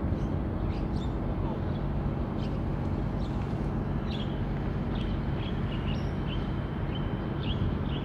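Steady low rumble with a faint hum from the container ship's engines as it moves past. Small birds chirp in short high notes from about four seconds in.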